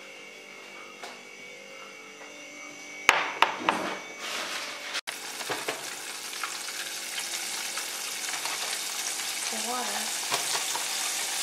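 Flour-coated chicken pieces frying in hot oil in a saucepan, a steady sizzle from about halfway through. Before it, a few sharp knocks against a quiet kitchen hum.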